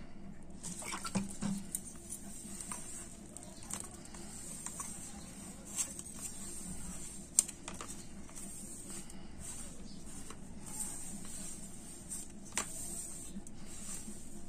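Hand kneading crumbly flour-and-ghee dough on a stainless steel plate as water is worked in: soft pattering and squishing, with scattered light clicks against the steel. A faint steady hum runs underneath.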